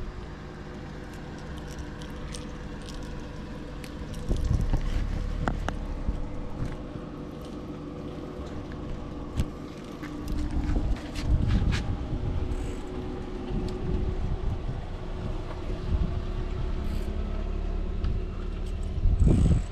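A vehicle running: a steady low engine and road rumble with a few held tones, scattered clicks and rattles, and louder low buffeting now and then.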